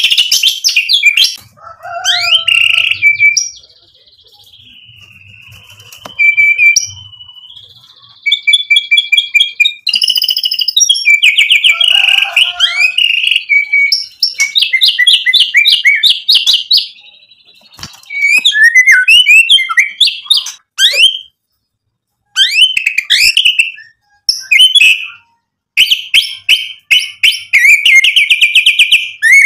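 White-rumped shama (murai batu) singing a loud, varied song of fast rattling trills, runs of rapidly repeated notes and long high whistles, broken by short pauses. This is the bird pouring out its repertoire of learned song phrases (isian).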